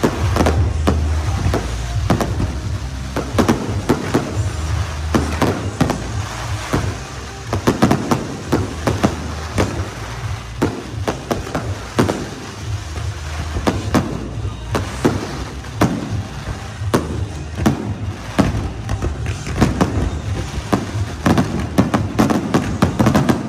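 Aerial fireworks display: a dense, continuous barrage of shell bursts and bangs, several a second, over a heavy low rumble.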